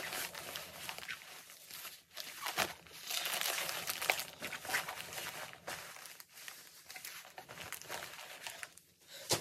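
A cloth-and-plastic bag and its packaging crinkling and rustling on and off as the bag is handled, folded and rummaged through.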